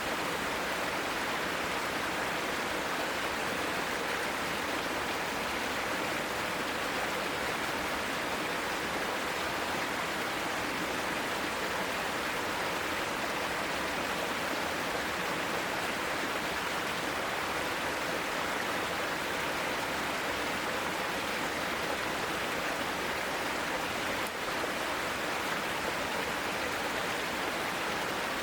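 Mountain valley stream: water rushing in a steady, unbroken flow.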